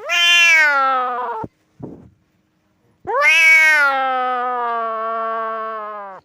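Cat meowing: two long drawn-out meows, each falling in pitch, the second about three seconds long. A brief low sound comes between them.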